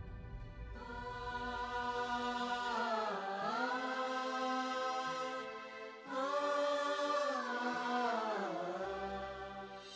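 Background score music: a chant-like sung vocal holds two long notes, each sliding down in pitch at its end.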